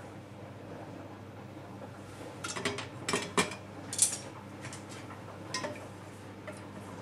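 Wooden chopsticks knocking and clicking against the inside of a stainless steel saucepan as the braising liquid is stirred to dissolve sugar, with the pan handled on the gas hob. A cluster of sharp knocks starts about two and a half seconds in, the loudest near four seconds, then a few lighter taps follow.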